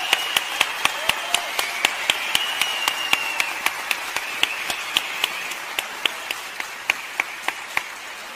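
Audience applauding in a large hall, with one close clapper standing out in a steady beat of about four claps a second that slows slightly near the end.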